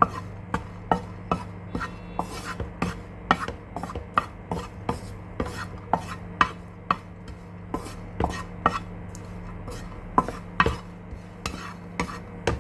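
A spatula knocking and scraping in a pan, about two strokes a second, as raisins are stirred while frying in ghee. A steady low hum runs underneath.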